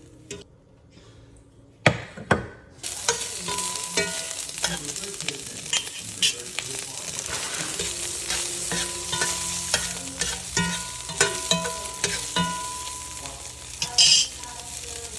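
Two knocks, then about three seconds in food starts sizzling and frying in a pan. The sizzle holds steady while a utensil stirs and clinks against the pan.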